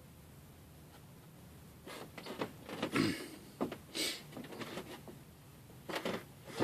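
Palette knife scraping and tapping against paint, a series of short irregular scrapes and clicks that start about two seconds in.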